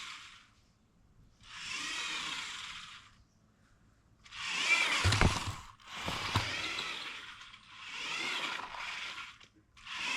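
Small electric motor and gears of a remote-control Lego Porsche whining in four short runs as the car drives forward and back, the pitch rising and falling with each run, with a couple of sharp knocks midway.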